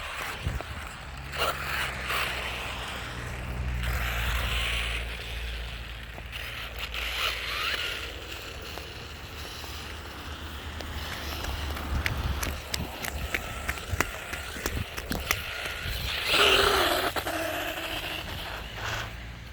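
Remote-control toy car driving over the ground, its wheels rolling and scraping in several bursts, the loudest near the end.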